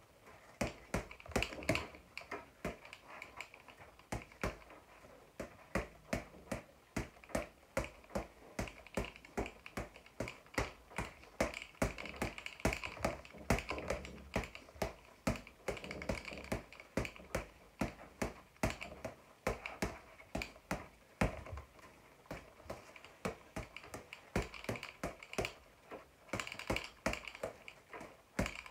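Boxing gloves punching a floor-to-ceiling ball: quick, uneven runs of sharp smacks, two or three a second, with a brief lull a few seconds in.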